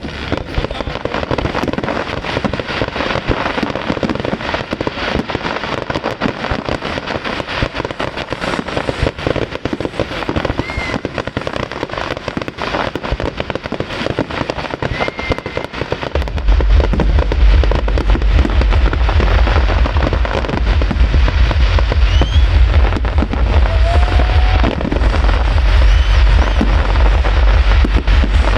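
Fireworks display: dense crackling and popping bursts with a few short rising whistles. About halfway through, heavy low booms come in and the display gets louder.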